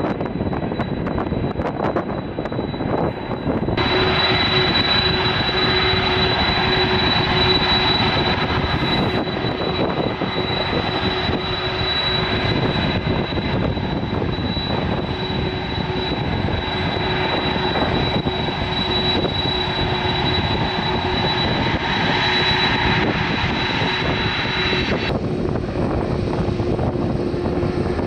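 Boeing 747's jet engines running as the aircraft taxis: a steady loud rush with a high whine over it. The sound turns abruptly louder and brighter about four seconds in and changes again, duller, near the end.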